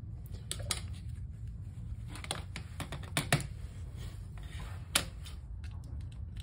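Small plastic clicks and taps as the circuit board of a NEGN 620A multimeter is pried out of its plastic case and handled. Two sharper knocks come about three and five seconds in.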